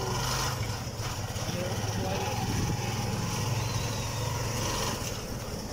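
A vehicle's engine running steadily as it drives along a paved street, a constant low drone with road noise.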